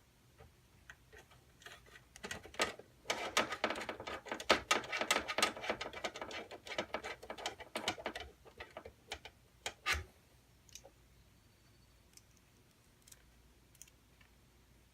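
Computer parts being handled and fitted by hand: a dense run of small plastic and metal clicks and rattles for about six seconds, then a single knock about ten seconds in.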